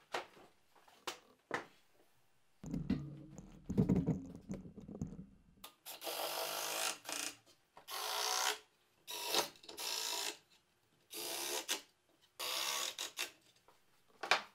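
A red cordless drill driving screws into steel butt hinges on wooden stair panels, in about six short bursts, each under two seconds. Before that, a few knocks and a low, loud scraping rumble as the wooden pieces are handled.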